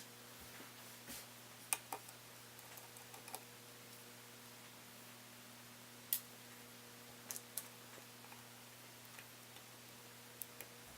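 Scattered small, sharp clicks and taps of hand tools and fingers working on a laptop's internal parts, about seven or eight over several seconds, over a faint steady hum.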